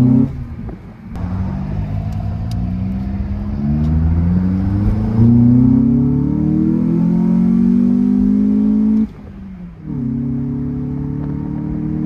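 Honda Accord's K24A4 2.4-litre four-cylinder with a short-ram intake and HKS muffler, heard from inside the cabin, accelerating up through the gears: the engine note rises several times with drops at the shifts. About nine seconds in the engine sound falls away suddenly, then picks up and holds a steady, higher note.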